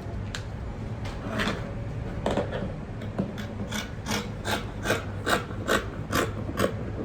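A series of short scraping strokes on paper, irregular at first, then a steady run of about two to three a second through the second half, from work on a paper skirt pattern.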